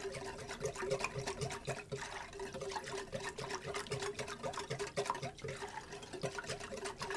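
A runny mix of orange juice, lemon juice, water, sugar and cornflour being stirred in a bowl to dissolve the cornflour: liquid swishing with a quick, irregular run of clicks from the utensil against the bowl.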